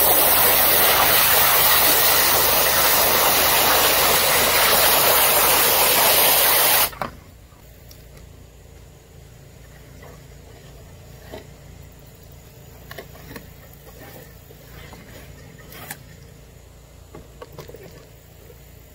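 Pressure washer water jet spraying with a loud, steady hiss, cutting off suddenly about seven seconds in. After that a few light knocks from handling are heard over a faint low hum.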